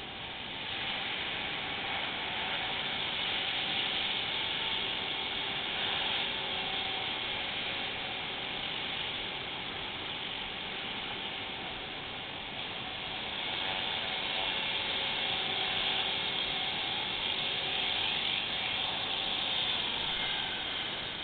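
CopterX 450 Pro electric RC helicopter in flight, its 430XL brushless motor whining and its carbon-fibre main rotor buzzing. The sound grows louder and fades twice as the helicopter passes nearer and farther.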